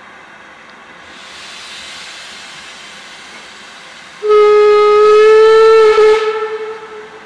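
L&Y Class 23 0-6-0 saddle tank steam locomotive hissing steam, then sounding its whistle a little over four seconds in: one long blast, rising slightly in pitch, held for about two seconds before dying away.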